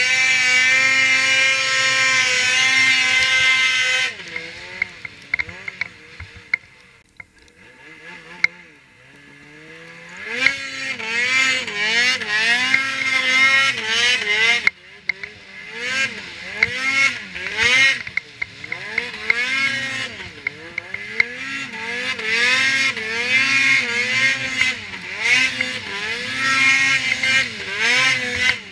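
Ski-Doo Freeride 800 snowmobile's two-stroke engine running at high, steady revs, then throttled off about four seconds in and running low and quiet for several seconds. From about ten seconds in, the revs rise and fall again and again as the throttle is worked on and off.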